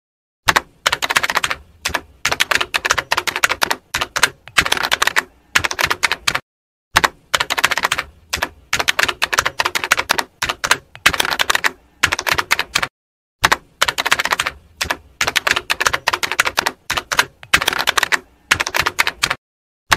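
Typewriter keystroke sound effect: quick runs of key clacks in clusters with short pauses, stopping fully for a moment a few times.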